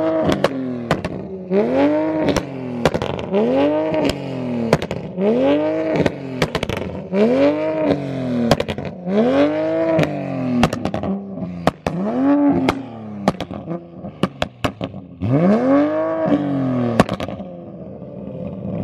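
Mk5 Toyota Supra's engine revved through its exhaust about eight times, each rev rising and falling, roughly every two seconds. Sharp exhaust pops and bangs crackle between and over the revs, the overrun cracks of a burble (pop-and-bang) tune meant to throw flames.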